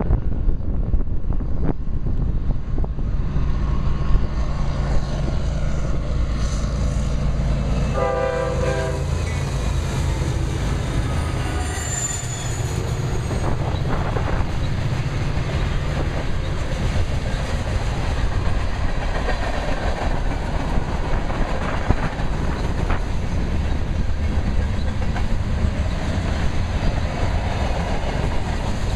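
A train rumbling past with wheels clattering on the rails, and one horn blast of about a second, roughly eight seconds in. Wind buffets the microphone throughout.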